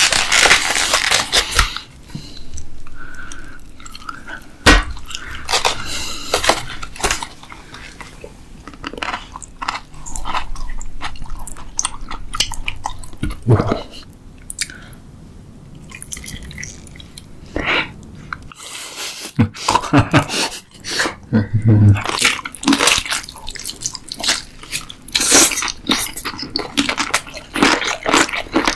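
Close-miked eating: irregular chewing, crunching and wet mouth sounds.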